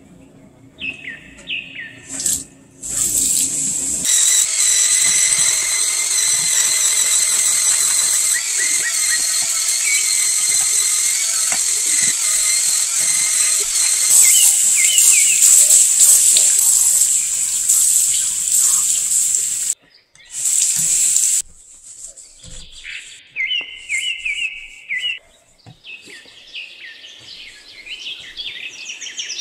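Handheld electric spin scrubber running with a high, steady whine as its bristle brush scrubs a ceramic sink and faucet. It stops suddenly a few seconds before the end, starts again for about a second, then stops.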